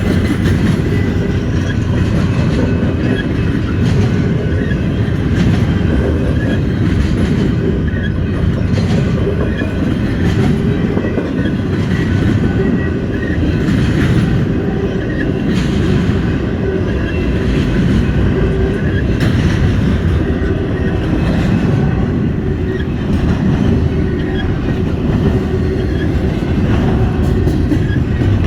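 Norfolk Southern freight train rolling past at track side: a steady, loud rumble of railcars with wheels clicking over rail joints every second or two.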